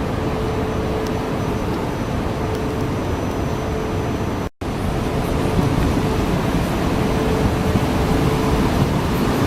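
Steady running noise of a JR electric train, a rumble with a faint even hum through it. The sound cuts out for an instant about four and a half seconds in and comes back a little louder.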